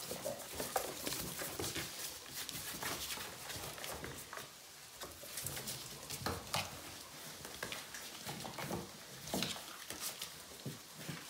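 Puppies scrabbling in and tugging at a cardboard box: cardboard rustling, scraping and crumpling, mixed with irregular clicks and scuffs of paws and claws on the floor.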